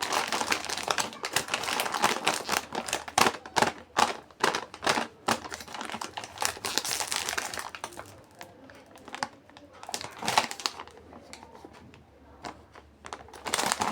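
Plastic snack packaging crinkling and rustling as it is handled. The crackling is dense for about the first half, then thins to scattered crinkles, with another flurry near the end.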